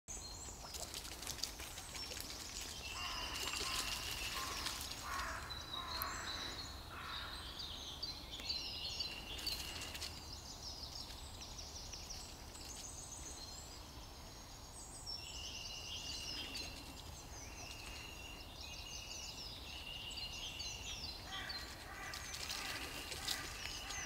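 Several small songbirds singing and calling, with short trills and repeated high notes coming and going, over a steady low rumble.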